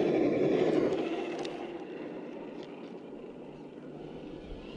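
Traxxas TRX-4 1/10-scale RC crawler driving over wood chips. Its electric motor and drivetrain run with the tyres crunching the chips, loud at first and fading after about a second as it moves away.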